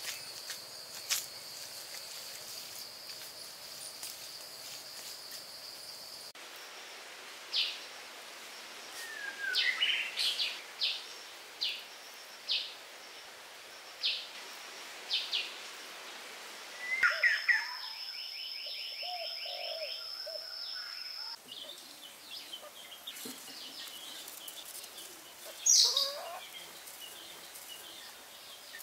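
Forest birdsong: repeated short, high chirps and calls, with a single loud sweeping call near the end, over a steady high-pitched insect drone that comes and goes. The background changes abruptly a few times.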